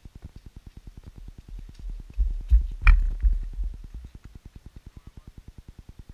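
Footfalls of a trail runner passing close by on a dirt forest path: a short run of heavy thuds, about three per second, that swells and fades about two seconds in. Under them is a faint, fast, even ticking.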